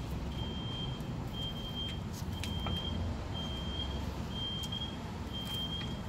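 A high electronic warning beep, each about half a second long, repeating once a second over a low rumble. A few light metal clicks come as a brake pad is fitted against the caliper bracket.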